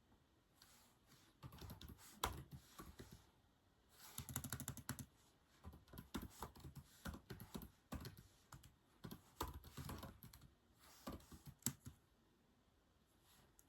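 Typing on a keyboard: uneven runs of soft keystrokes with short pauses between them, a quick burst of keys about four seconds in.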